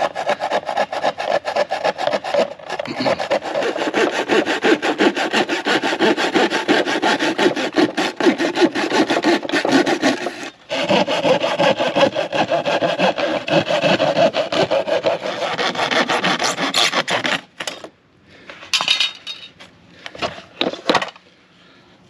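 A saw cutting through a carpeted floor hatch panel with a corrugated-cardboard core and plaster-like skins, in fast, steady strokes. It breaks off briefly about ten seconds in and stops a few seconds before the end, with a few short scrapes after.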